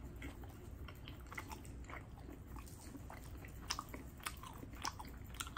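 Close-miked mouth sounds of a person chewing a slice of pizza: soft, wet clicks and smacks, with a few sharper ones in the second half.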